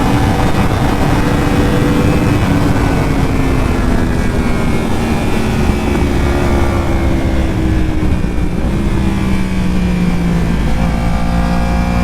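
Yamaha R1 inline-four sport bike engine heard on board while riding, with wind rush on the microphone. The engine note slowly falls in pitch for most of the stretch, then climbs again near the end as the revs rise.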